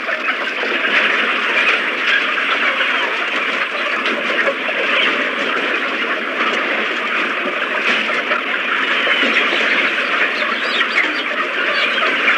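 A large flock of hens in battery cages clucking and squawking all at once, a dense, steady mass of overlapping calls.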